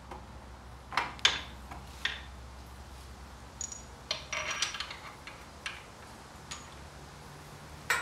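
Metal clinks and knocks of a steel engine stand mounting bracket and its bolts being handled against an engine block, with a short burst of rapid clattering about halfway through.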